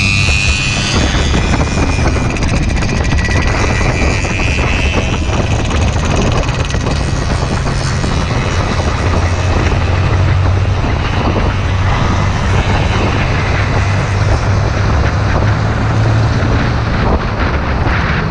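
Yamaha Vixion motorcycle engine running steadily at cruising speed, largely covered by heavy wind rush on the helmet camera's microphone.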